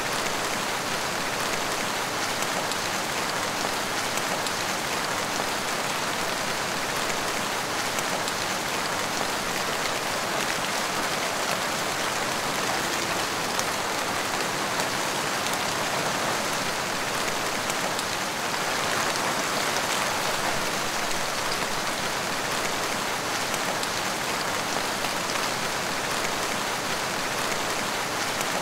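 Heavy rain falling steadily: a dense, even hiss of many drops with faint fine ticks, swelling slightly about two-thirds of the way through.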